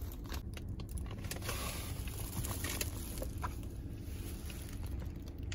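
Faint rustling and small clicks of a paper takeout box of pad thai being handled, over a low steady hum inside a car.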